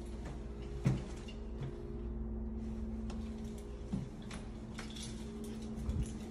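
A steady low hum with a few soft knocks and clicks, the sharpest about a second in, from a phone being handled while a closet door is opened and the inside is looked over.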